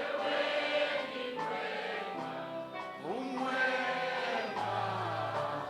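A group of voices singing a gospel praise song in long held notes over instrumental backing, with a low bass note coming in near the end.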